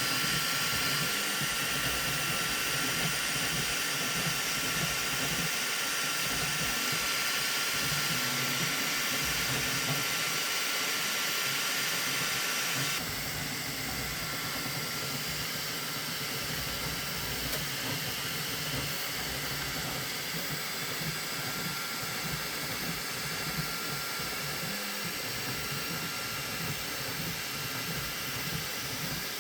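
Flashforge Adventurer 5M 3D printer running, a steady whirring hiss with faint steady tones. About halfway through, the higher hiss drops suddenly and the sound gets a little quieter.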